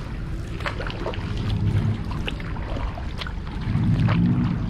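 Kayak paddle strokes, with water splashing and dripping off the blades in short irregular ticks over a low rumble of wind and water on the microphone. A low hum rises near the end and is the loudest part.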